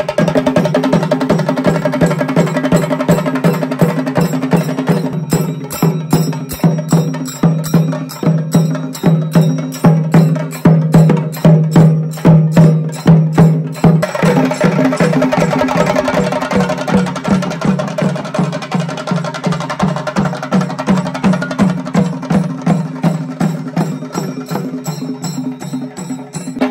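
Chenda melam: a group of Kerala chenda drums beaten with sticks in a fast, driving rhythm, with brass hand cymbals keeping time. From about five seconds in to about fourteen seconds the strokes come louder and more sharply accented, then the drumming settles back into a dense, even roll.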